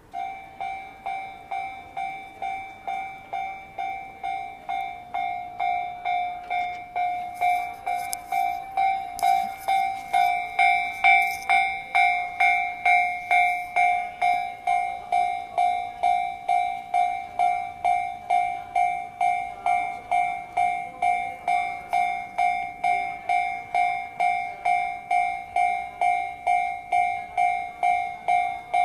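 Japanese railroad crossing warning bell ringing with an even ding about twice a second, which means the crossing is closed. Between about 7 and 14 seconds in, a passing train adds rattling and hiss under the bell.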